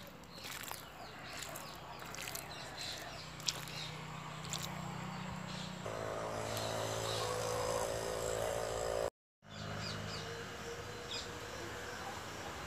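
Outdoor background with birds chirping in short calls over a steady low hum. From about six seconds in a louder droning tone with several pitches joins, and the sound drops out for a moment near nine seconds.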